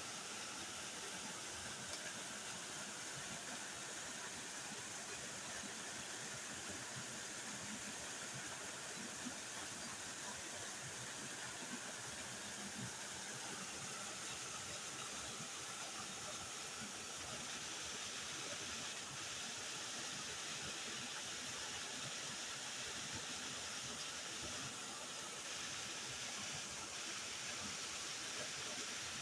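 Waterfall: water falling and splashing in a steady, unbroken rush of noise.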